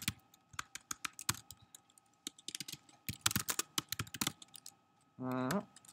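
Computer keyboard keys being typed in quick, irregular runs of clicks. A short low hum, rising slightly in pitch, comes about five seconds in.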